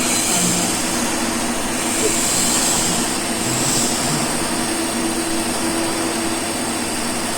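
TIG welding arc at about 120 amps, with a steady hiss and a low hum.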